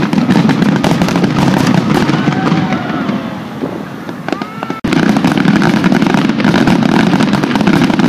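Aerial fireworks shells bursting in rapid succession, a dense run of bangs and crackling. The sound drops out abruptly just under five seconds in and starts again at full strength.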